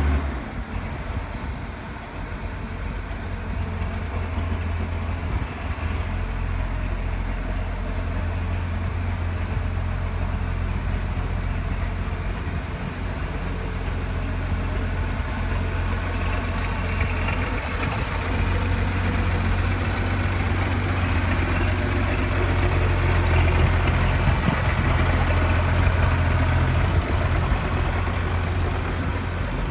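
Marshall 125 tractor's diesel engine running steadily, growing louder over the second half as the tractor moves out of the shed.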